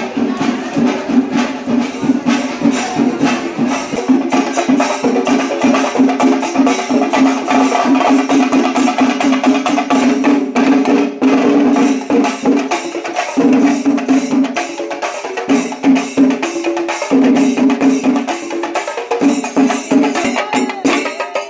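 Traditional Kerala temple percussion ensemble playing: fast, dense drum strokes over a sustained low tone that breaks off and resumes several times in the second half.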